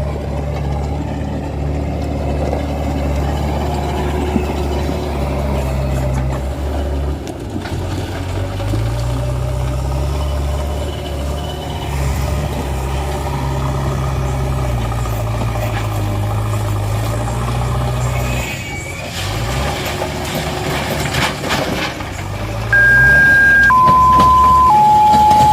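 A low engine-like rumble runs steadily. Its pitch climbs about a third of the way in and sinks again later, and it dips out briefly past the two-thirds mark. Near the end a few clear electronic tones step down in pitch.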